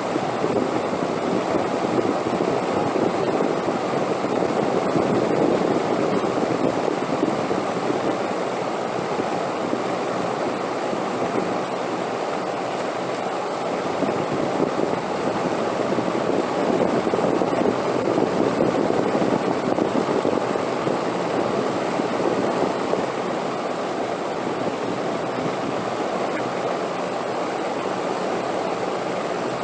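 Steady rushing wind that swells in gusts a couple of seconds in and again about halfway through, then eases back.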